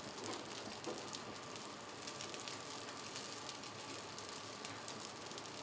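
Chicken wings sizzling on a flat-top griddle: a steady crackling hiss with many fine pops.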